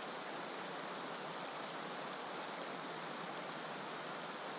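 Steady rushing hiss of flowing creek water, heard with the camera held at or just under the water's surface.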